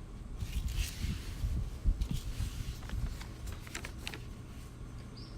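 Handling noise from a Gerber MP400 multitool being turned over in the hands: low rubbing and rustling with a few faint metal clicks.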